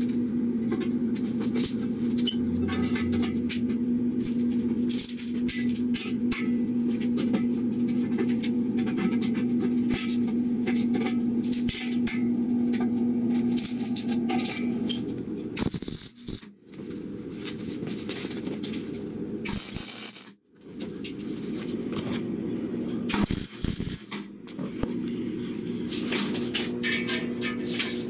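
Steel square tubing being handled and clamped: scattered clanks, clicks and scrapes of metal on metal over a steady low hum that stops about halfway through, with a couple of abrupt breaks after it.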